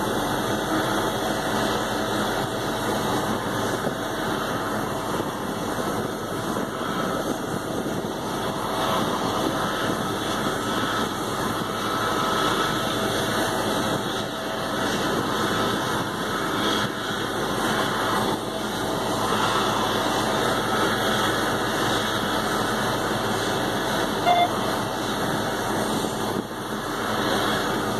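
Steady engine noise during a Boeing 767-300F pushback, from the towbar tug and the aircraft, running unbroken with a faint steady whine above it.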